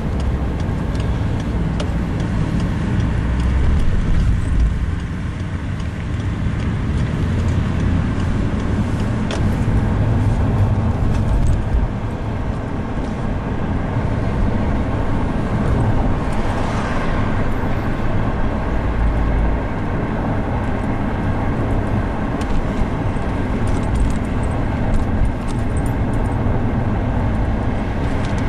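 A car driving at town speed, heard from inside: steady engine and tyre road noise. A brief swell of noise from a passing vehicle comes about halfway through.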